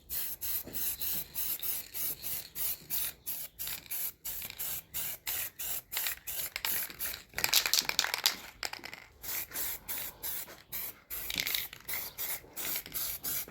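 Aerosol can of heat-resistant caliper spray paint hissing in rapid short bursts, about three or four a second, as a first coat goes on. About halfway through there is one longer, louder spray.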